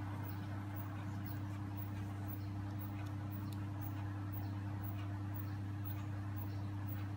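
A steady low hum, with faint light ticks every half second or so.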